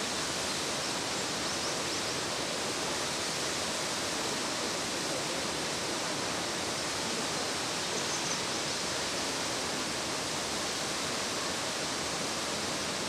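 Nachi Falls, a single tall waterfall of about 133 m, pouring into its plunge pool: a steady, unbroken rushing of falling water.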